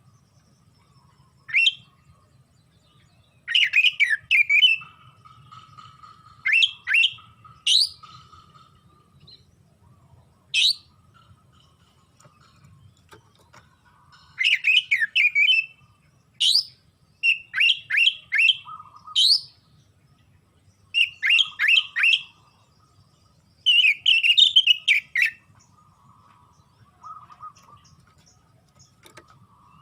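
Oriental magpie-robin (kacer) singing loud, energetic song: short phrases of rapid, sharp sweeping whistled notes, several to a phrase, broken by pauses of a second or two.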